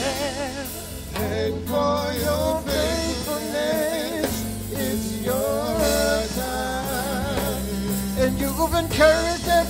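Gospel song: a singer holding and bending long notes with heavy vibrato over a band with a steady bass line.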